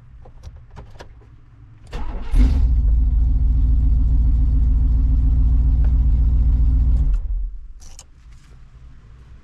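1998 Chevy Tahoe engine started with the new ignition key and lock cylinder: a few light clicks, then about two seconds in the starter cranks briefly and the engine catches. It runs loud and steady for about five seconds, then drops away to a low hum.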